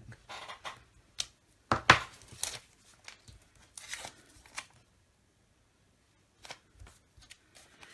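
Paper sticky-note masks being peeled off stamped cardstock: several short rustling rips in the first few seconds, then a few light taps near the end.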